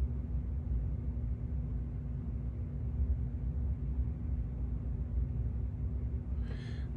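Steady low room hum with one constant droning tone, like a fan or other appliance running in a small workshop. A faint breath comes just before the end.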